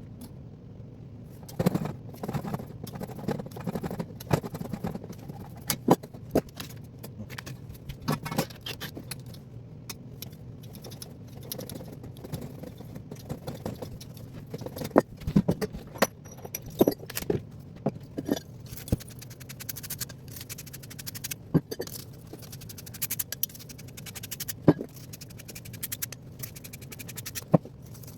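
Tools and metal parts being handled: irregular clinks, knocks and scrapes, some sharp and loud, over a low steady hum.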